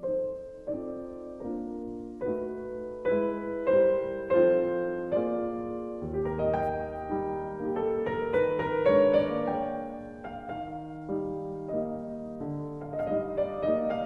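Background piano music: single notes of a melody struck over sustained chords, each note starting sharply and fading.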